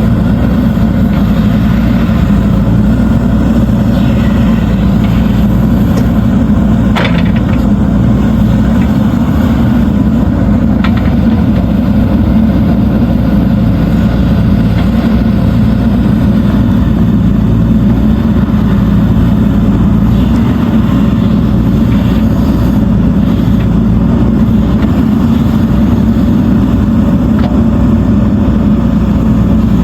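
JCB 3DX backhoe loader's diesel engine running steadily, with a single short knock about seven seconds in.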